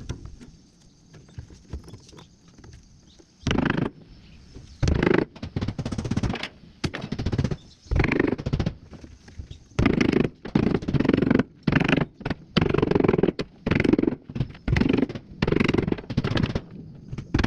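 Hammering in repeated bursts of quick blows, about a dozen bursts each under a second long, starting a few seconds in.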